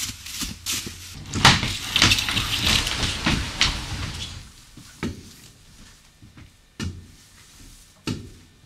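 A few seconds of clattering and rustling, then three separate knocks spaced a second or more apart.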